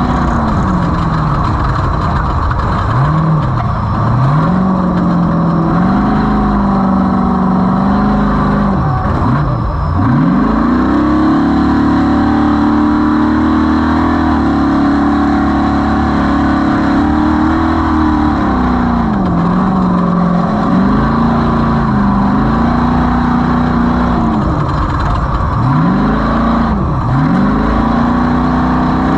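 Off-road race vehicle's engine driven hard, its revs rising and falling again and again, with sharp drops where the throttle comes off or a gear changes. About ten seconds in it climbs to steady high revs and holds there for around eight seconds before the rises and falls resume.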